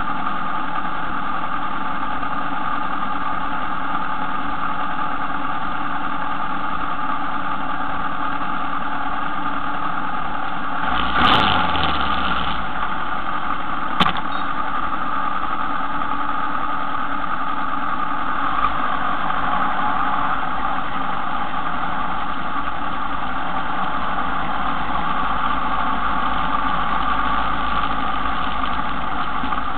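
A motor runs with a steady hum. About eleven seconds in there is a brief louder thump with a falling low tone, and a sharp click comes about two seconds later.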